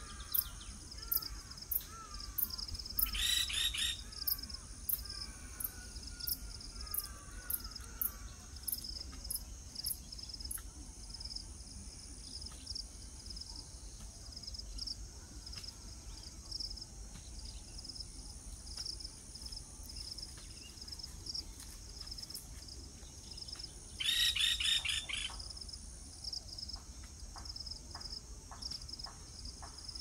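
A woodpecker pecks at a tree trunk in slow, irregular light taps. Under it runs a steady high insect drone. A loud rapid trilling bird call comes twice, about three seconds in and again near the end, and soft falling chirps sound in the first third.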